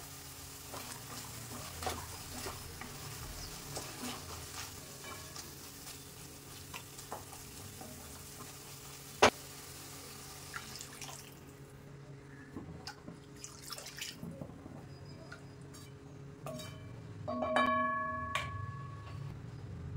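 Onion, tomato and peas sizzling in a pan with occasional stirring knocks and a sharp click about nine seconds in. The sizzle dies away about halfway through as coconut milk is poured in. Near the end come a few clinks and a short metallic ring of a utensil against the pan.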